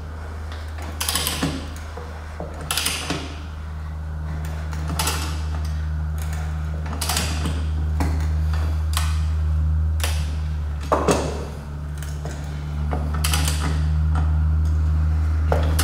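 Ratchet wrench clicking in short bursts on its return strokes, about every one to two seconds, as it turns the forcing screw of a three-jaw gear puller drawing a BMW E39 rear wheel hub out of its bearing. A steady low hum runs underneath.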